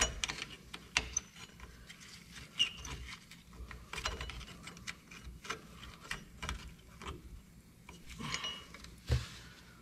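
Irregular light metal clicks and scrapes of a hand tool and the self-adjuster lever working against a drum brake's star wheel adjuster, with a duller knock near the end.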